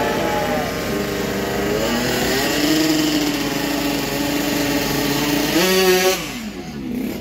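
Two-stroke drag-race motorcycle engine running at high revs, its pitch climbing and dropping back several times. About six seconds in it rises sharply, then the sound falls away quickly with a falling pitch.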